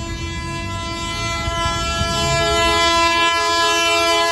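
Electric locomotive's air horn held in one long, steady chord as the train approaches at speed, growing louder, over the low rumble of train wheels on the track.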